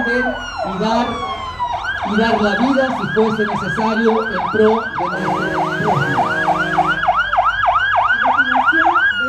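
Emergency vehicle siren: a falling wail switches about two seconds in to a fast yelp of three to four sweeps a second, then drops back into a falling wail near the end. A steady low tone sounds for about two seconds midway.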